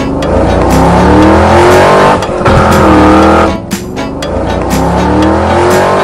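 Cartoon race-car engine sound effect revving in repeated rising sweeps, with background music.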